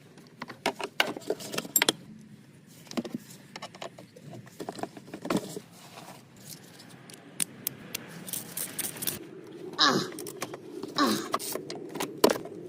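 Hand tools clinking and clicking on metal: a 13 mm wrench working on a car battery's fittings to free the dead battery, with a quick run of clicks about two-thirds of the way through.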